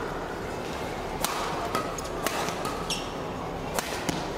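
Badminton rally: a shuttlecock struck by rackets with sharp cracks about a second apart, and one short shoe squeak on the court, over steady crowd noise.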